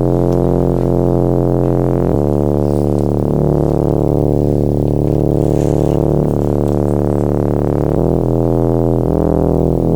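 Synthesizer music: slow, sustained low chords and drones that change about every two seconds.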